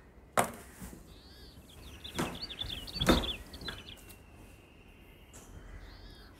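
Small birds chirping in quick twittering calls, with a few soft thumps and rustles of bedding as someone shifts on a bed and pats a pillow.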